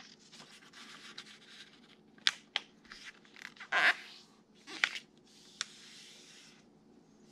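A sheet of paper being folded in half lengthwise and creased flat by hand: papery rustling and short scraping swishes as the palms smooth down the fold. The loudest swish comes about four seconds in, with a small sharp click a little later.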